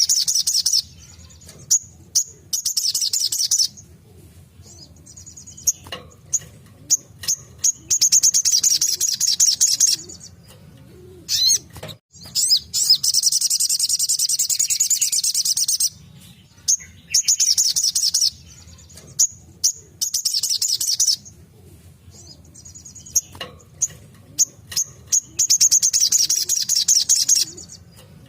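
Sogok ontong sunbird singing its rapid, high-pitched trilling song in bursts of one to three seconds, about six of them, with sharp single chips in between. A faint low hum runs underneath.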